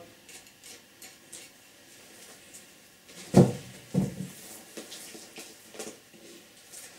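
Faint rustling and clicking as a muskrat pelt is pulled off the carcass by hand with the help of a knife. Just past halfway there are two short thuds about half a second apart.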